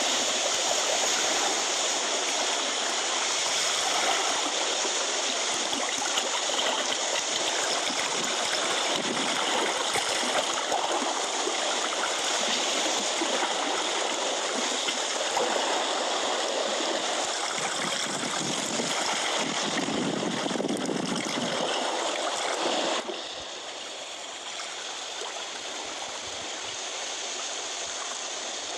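Steady rush of seawater washing over rocks, with no break in it. It drops suddenly to a quieter wash about 23 seconds in.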